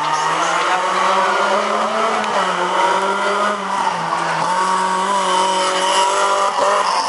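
Rally car engine running hard at high revs as the car comes through a corner. The pitch climbs a little, then drops about two seconds in and dips again midway before climbing once more.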